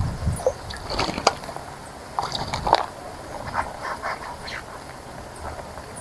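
Birds splashing in a bird bath: irregular bursts of splashing and fluttering in the water, in three clusters about a second apart.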